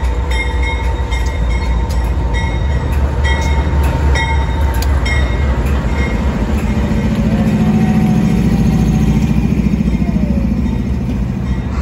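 A freight train passing close by: the heavy rumble of GE diesel locomotives, then old FEPASA 'V8' electric locomotives rolling past coupled behind them. Their steel wheels click over the rail joints about twice a second. A deeper buzzing engine note swells in the second half.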